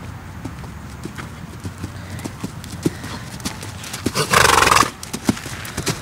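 Hoofbeats of a bay horse trotting on sand arena footing, a run of soft regular knocks. About four seconds in comes a loud breathy blow from the horse lasting under a second.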